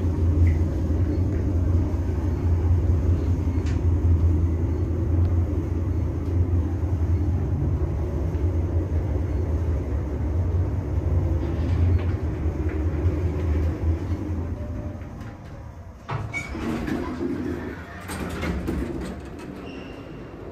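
Otis Elevonic 401 traction elevator car travelling down its hoistway: a steady low rumble that fades away as the car slows and stops about fourteen seconds in. A few sharp knocks and clatter follow near the end as the doors open and the rider steps out over the sill.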